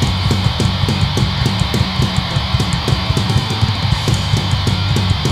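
Hardcore punk band playing live: distorted electric guitar and bass over fast, even drumming with cymbal hits, and no vocals.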